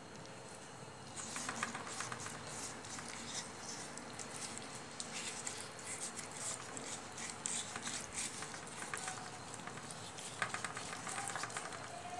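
A damp cloth rubbing and scrubbing over the wet clay surface of a freshly built mud stove to polish it smooth. The dense, scratchy rustle of quick strokes begins about a second in and keeps going.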